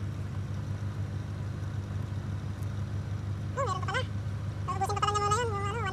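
Car engine idling steadily, heard from inside the cabin with the air-conditioning compressor engaged by the thermostat. In the second half, a high, wavering cry sounds twice, briefly and then for over a second.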